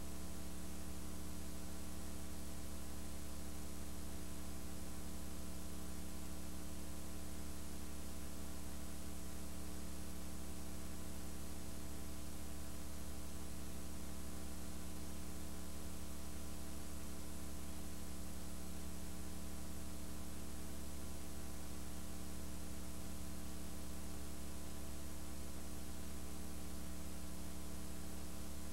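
Steady mains hum over a layer of hiss, with nothing else standing out.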